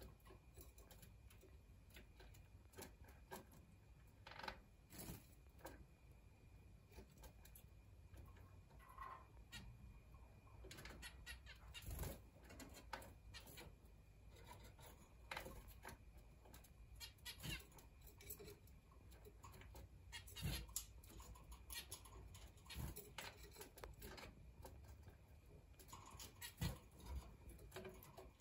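Young Gouldian finches bathing in a clip-on plastic bird bath: faint, scattered small splashes and wing flutters in shallow water, with a few soft bird chirps.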